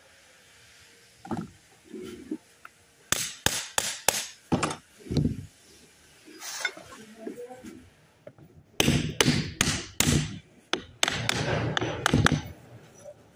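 Metal knocks and clatter from a power steering gearbox being handled and worked on: a few sharp knocks about three seconds in, then a denser run of knocks and scraping from about nine seconds to near the end.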